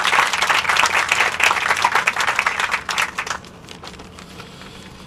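Audience applauding, a dense patter of handclaps that dies away about three and a half seconds in.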